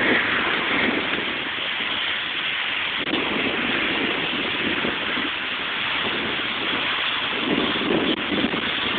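Steady rushing noise of wind blowing across the phone's microphone.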